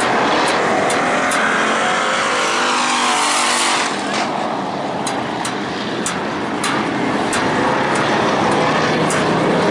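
A field of dirt-track stock cars running around the oval, their engines a loud, continuous drone that rises and falls in pitch as the pack passes. Scattered sharp clicks come through over the engine noise.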